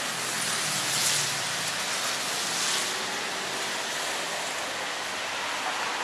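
Steady hiss of rain on a city street, with two brief swells of louder hiss about one and three seconds in.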